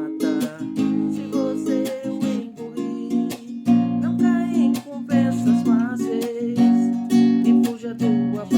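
Acoustic guitar music, plucked and strummed, with notes changing every fraction of a second.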